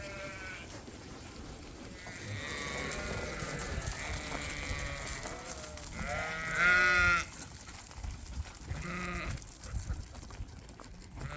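Lambs bleating in a string of separate calls, the loudest a little past halfway.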